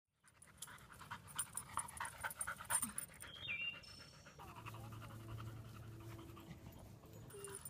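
A dog panting rapidly in quick short breaths, with a brief high squeak that falls in pitch about three and a half seconds in.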